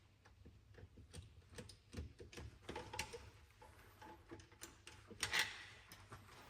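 Irregular light clicks and small knocks of hand tools and engine parts being handled, with a louder clatter about five seconds in.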